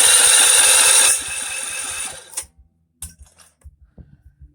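Electric starter cranking the mini backhoe's small gasoline engine, loud with a high whine, easing off about a second in and stopping about two and a half seconds in without the engine catching. This is a first start, cranking to prime the hydraulic pump; faint clicks follow.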